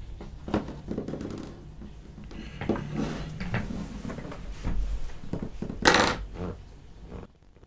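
Plastic action-figure arms being picked up and set down on a cutting mat: a series of small knocks and rubs, the loudest about six seconds in, then the sound cuts off suddenly.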